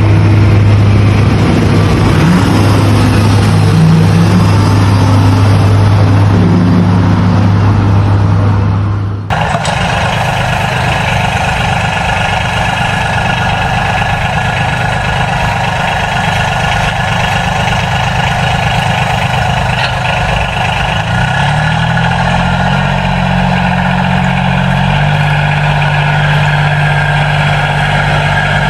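Tractor engine sound running steadily. About nine seconds in it cuts abruptly to a different engine sound, which rises in pitch a little past twenty seconds and then holds at the higher pitch.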